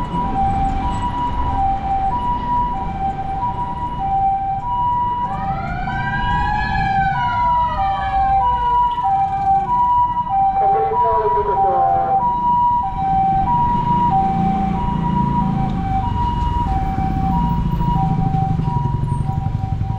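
Japanese ambulance siren sounding its two-tone hi-lo "pee-po" call, alternating steadily between a higher and a lower pitch, over the rumble of street traffic. About five seconds in, another siren wail rises and then falls slowly once, fading out by about twelve seconds.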